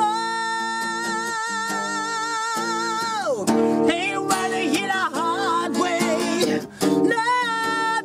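A man singing an improvised song while strumming an acoustic guitar. He holds one long note with vibrato for about three seconds, slides down, sings a run of shorter notes, then holds another note near the end.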